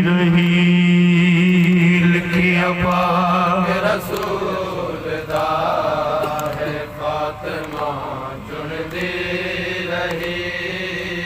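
A man chanting a Shia marsiya (elegy) through a microphone and loudspeaker, holding long, wavering notes. About four seconds in the lead voice falls back and the chant goes on more quietly, with the surrounding men joining in.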